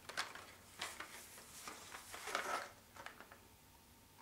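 Carded action figures being handled and turned over: cardboard backing cards and plastic blister bubbles rubbing and rustling. The sound comes as a few short, faint scrapes, the longest about two and a half seconds in.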